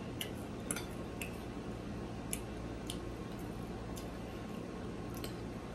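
Close-miked eating: a person quietly chewing fried pork chop, with a dozen or so small wet clicks and ticks at irregular intervals.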